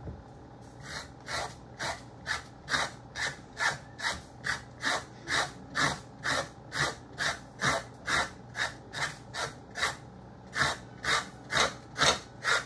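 Green papaya skin being scraped off with a homemade scraper cut from an empty coconut cream can: quick, even scraping strokes, about two and a half a second, starting about a second in.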